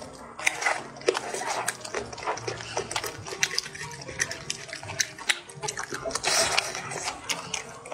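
Close-up wet chewing and lip-smacking while eating soft, fatty braised pork belly: a dense run of small moist clicks and smacks.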